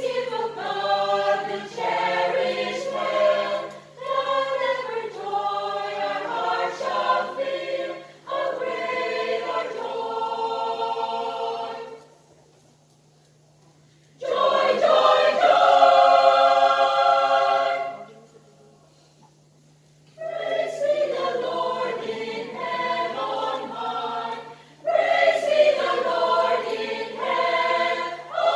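Choir singing a Christmas carol in long phrases, breaking off twice for short pauses, about twelve and eighteen seconds in. A steady low hum runs underneath.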